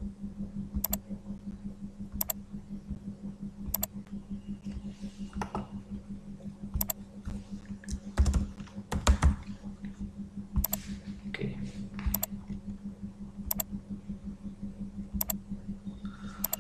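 Computer keyboard keystrokes and mouse clicks, scattered, with a louder cluster about eight to nine seconds in, over a steady low hum. Short sharp clicks also recur about every second and a half.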